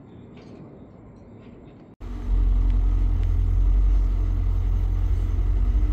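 BMW E39 M5's S62 V8 idling steadily through its stock factory exhaust: a deep, even rumble that comes in suddenly about two seconds in, after faint background noise.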